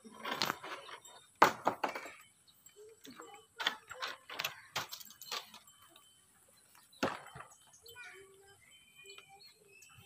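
Wooden ladder knocking and clattering as it is carried and set up, a series of sharp knocks with the loudest about a second and a half in and another strong one about seven seconds in.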